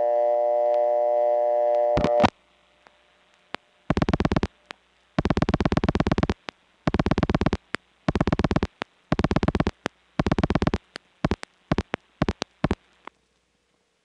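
Old step-by-step telephone exchange dial tone, a steady buzzy chord, cut off by clicks about two seconds in, followed by rotary dial pulsing heard on the line as six rapid trains of clicks, one per dialed digit, and then a few single clicks; it goes quiet near the end as the call waits for an operator.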